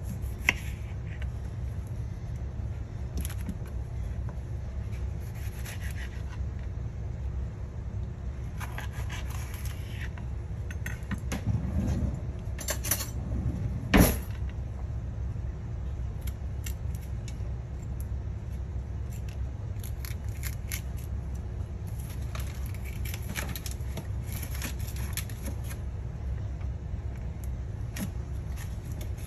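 Kitchen knife cutting on a cutting board: scattered taps and scrapes of the blade, with a sharp knock just after the start and a louder one about halfway through, over a steady low hum.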